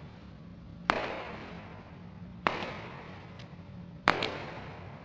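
High-heeled shoes striking concrete, three sharp clicks about a second and a half apart, each followed by an echoing tail.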